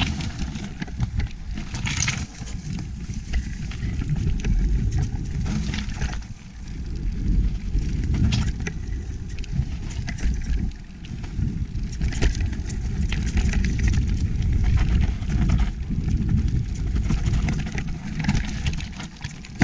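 Wind rumbling on a chest-mounted action camera's microphone while an electric mountain bike rides a rough trail. Frequent sharp knocks and rattles come from the tyres and bike going over stones and bumps.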